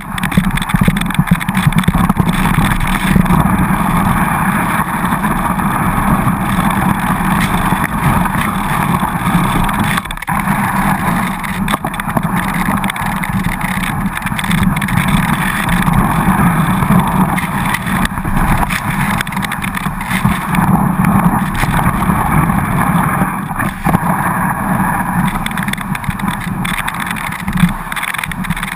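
Skis sliding over soft, tracked-up snow: a continuous scraping rush, muffled and rumbling through the GoPro Hero2's waterproof housing.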